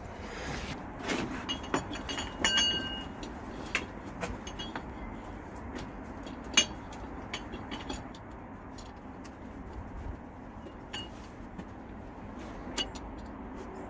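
Scattered light clicks and metallic clinks of small metal parts and tools being handled, with a brief ringing clink about two and a half seconds in and a sharp click a few seconds later.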